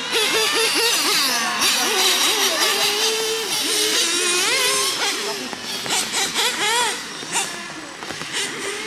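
1/10-scale nitro RC cars' small two-stroke glow engines revving hard, several at once. Their pitch keeps rising and falling as the cars accelerate and lift off around the track.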